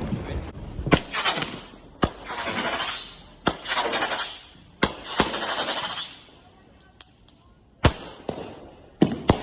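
Consumer fireworks going off: a string of about seven sharp bangs, several trailed by a second or so of hissing crackle.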